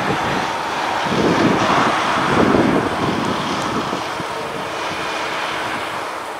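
Airbus A320neo on final approach, its Pratt & Whitney PW1100G geared turbofans giving a steady distant rushing hum. Wind buffets the microphone, in heavier gusts from about one to three seconds in.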